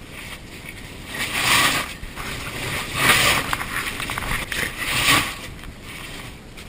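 Caver crawling through a narrow rock passage: scraping and shuffling on rock, swelling louder three times, about every second and a half to two seconds.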